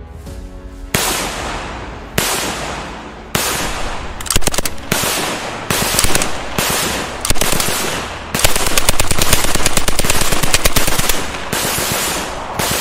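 Dubbed battle sound effects of gunfire: single heavy shots, each with an echoing tail, about one a second, mixed with rapid bursts of machine-gun fire, and one long unbroken burst about two-thirds of the way through.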